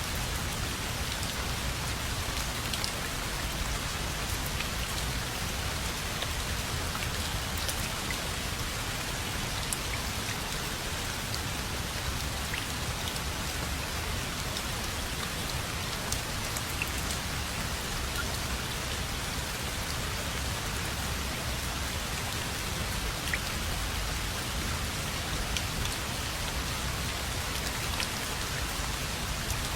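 Steady rain falling and pattering on surfaces, with many small individual drop ticks scattered through an even hiss.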